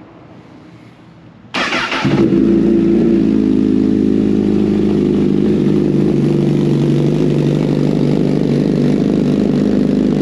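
Car engine starting: a short burst of cranking about a second and a half in, then it catches and settles into a loud, steady idle.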